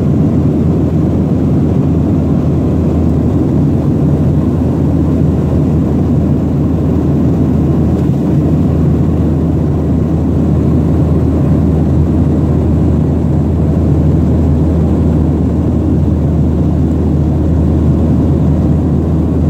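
Jet airliner in flight, heard from inside the cabin: a steady, even rush of engine and airflow noise, deep and unchanging.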